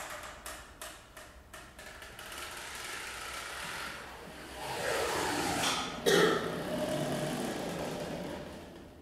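Experimental percussion playing: a run of quick clicking taps, then a swelling rushing noise with a sweep in pitch, a single sharp strike about two-thirds through (the loudest moment), and a wash of sound that slowly fades.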